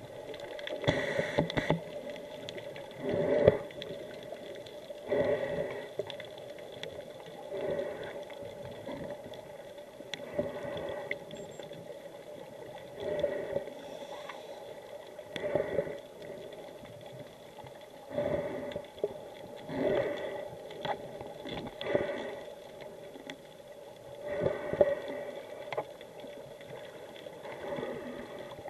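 Muffled water sloshing and splashing around a camera held just under the surface in shallow water. It comes in short surges about every two to three seconds over a steady hiss.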